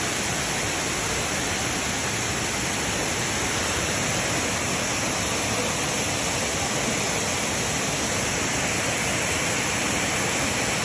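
Stream flowing and babbling, a steady, even rush of water.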